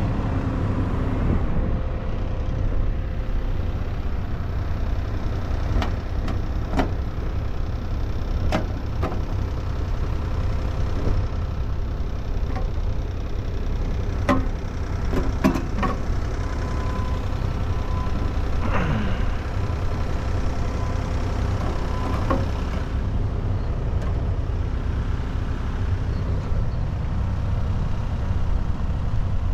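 Heavy equipment diesel engine running steadily, with scattered metal clanks and knocks.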